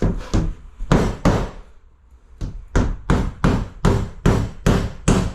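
Hammer driving nails through a cement sheet into the wall studs: a few blows, a short pause, then a steady run of about three strikes a second.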